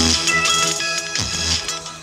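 Electronic music with deep bass notes that swoop down in pitch, played loud through a TDA2003 10-watt amplifier driving two small speakers without enclosures.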